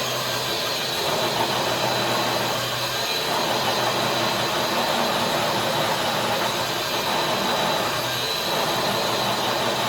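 Electric RC scale truck's motor and geared drivetrain whining steadily under load as it drags a brick-weighted sled across concrete.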